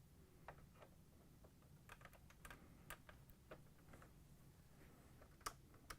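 Faint, irregular light clicks and taps of a plastic washer selector knob being fitted onto its control shaft.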